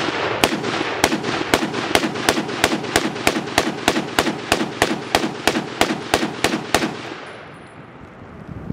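Semi-automatic Ohio Ordnance BAR M1918A3 rifle in .30-06 fired in a fast string of about nineteen shots, roughly three a second, stopping about seven seconds in.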